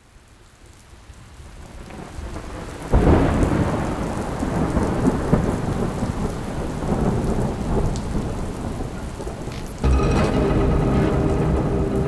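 Heavy rain fading in, then a sudden deep boom of thunder about three seconds in, with rain and rolling thunder continuing. Near the end a second loud rumble comes in, joined by steady low tones.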